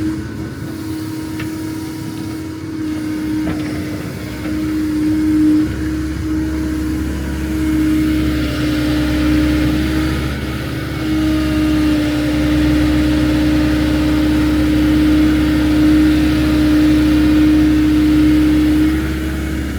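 An excavator's diesel engine running steadily, with a strong steady hum over the rumble. It grows louder and heavier about four seconds in and again around eight seconds in.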